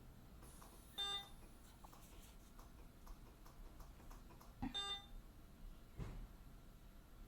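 Hospital bedside equipment beeping: a short electronic beep that repeats about every four seconds, sounding twice, with faint clicks and a couple of soft low thumps in between.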